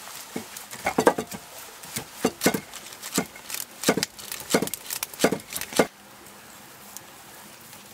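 Hands patting and pressing pizza dough flat on a stone slab: an uneven run of short taps and slaps, two or three a second, that stops about six seconds in.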